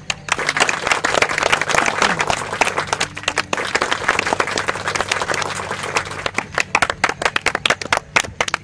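A group of people clapping in applause, starting all at once and thinning toward the end into scattered separate claps.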